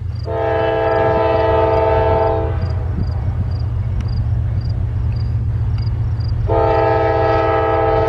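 CSX GE diesel freight locomotive's air horn sounding two long blasts, the second starting about six and a half seconds in, a grade-crossing warning, over the steady low rumble of the approaching train.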